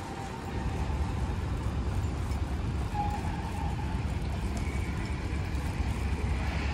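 Low, steady rumble of city street noise, with no distinct events.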